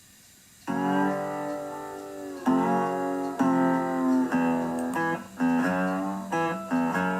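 Acoustic guitar music starting about half a second in: strummed chords, each ringing out and fading before the next, coming quicker toward the end.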